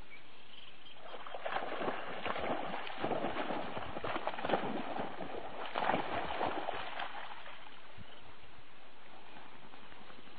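Water splashing and sloshing in an irregular run that starts about a second in and dies away after about seven seconds.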